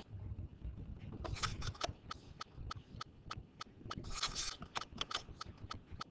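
Faint scattered clicks and light scrapes, clustered about a second and a half in and again around four seconds in, over a low room rumble.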